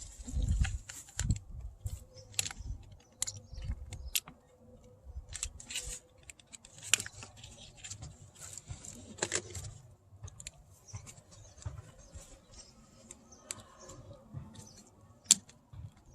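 Hands handling small plastic parts and speaker wiring inside a car door: scattered clicks, taps and short rustles, with one sharp click about a second before the end.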